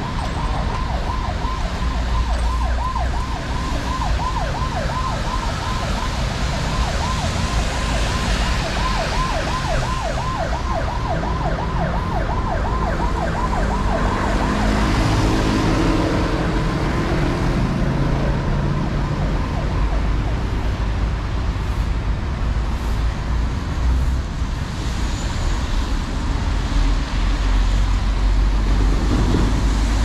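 An emergency vehicle's siren in a fast yelp, rising and falling about three times a second, stops about halfway through. Steady city road traffic follows, with a vehicle engine passing a few seconds later.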